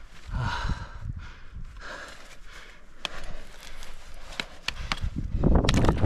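Heavy breaths from an ice climber and a few sharp clicks of metal gear on ice. Near the end, wind starts buffeting the microphone with a loud low rumble.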